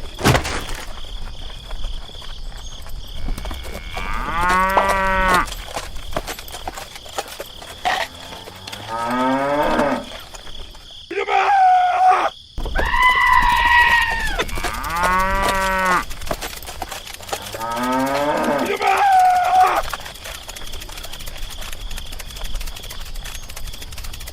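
Cattle mooing, about six long calls spread over the stretch, with short gaps between them.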